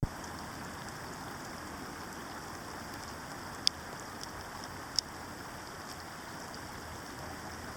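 Steady hiss of water, as from rain or a stream. Two sharp clicks come about a second and a half apart, a little past halfway.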